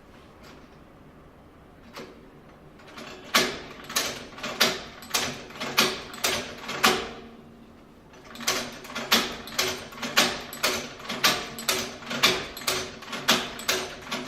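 Hand-operated leather stitching machine worked stroke by stroke: a mechanical clack with a short ring, about twice a second. The strokes start about three seconds in and pause briefly about halfway through.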